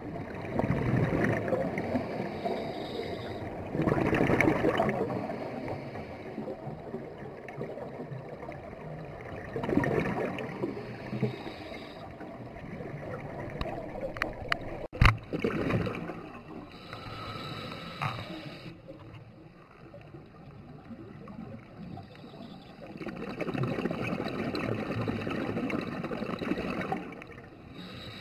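Scuba breathing underwater: a few long bursts of bubbling exhalation from a regulator, separated by quieter stretches. A single sharp click about halfway through.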